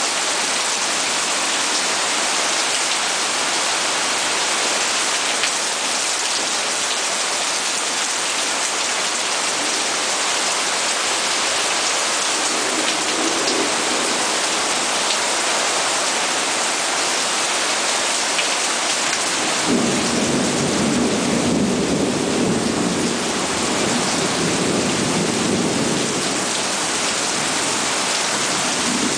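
Heavy rain pouring down in a steady, dense hiss. Thunder rumbles low beneath it briefly about halfway through, then again for several seconds in the latter part.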